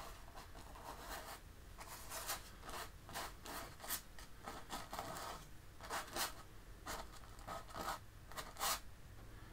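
Paintbrush loaded with paint being worked over a canvas in short strokes, about two a second with brief pauses between them.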